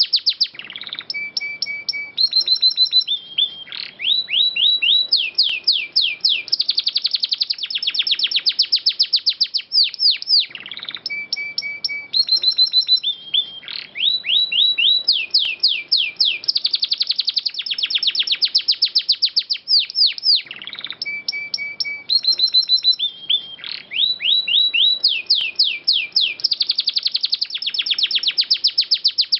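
Domestic canary singing: fast trills of rapidly repeated notes and short held whistles. The same song phrase repeats about every ten seconds, as a loop.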